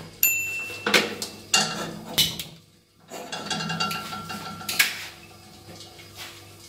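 Stainless steel pot knocking and clanking against the metal grate of a gas hob as it is handled, a string of irregular sharp knocks.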